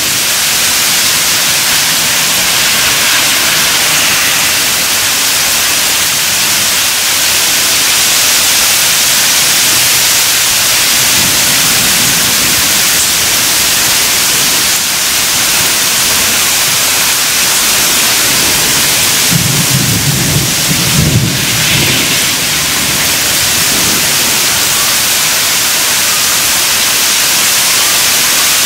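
Heavy rain falling in a thunderstorm, a steady dense hiss, with low rolls of thunder twice: a weaker one about eleven seconds in and a stronger one around twenty seconds in.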